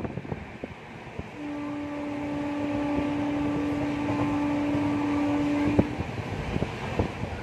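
Passenger train running, with a steady rumble and sharp rail-joint clicks. About a second in, a locomotive horn sounds one long steady blast that stops about six seconds in.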